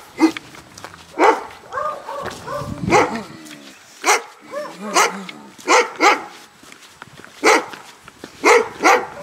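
Dogs barking repeatedly, about ten loud barks over several seconds, some in quick pairs.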